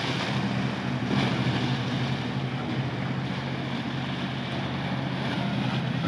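Motorboat engine running with a steady drone, over rushing water and wind on the microphone.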